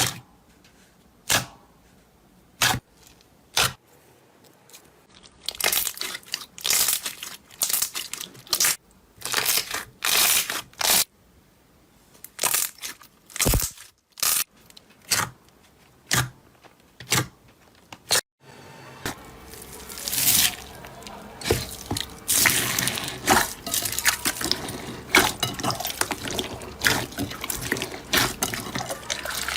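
Slime being pressed and squished by hand. A few sharp pops about a second apart come first, then bursts of crunchy crackling. After an abrupt cut there is a denser, continuous wet crackle.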